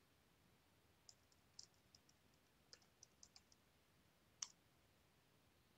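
Faint computer keyboard keystrokes typing a name: a scattered run of light clicks, with one sharper click about four and a half seconds in.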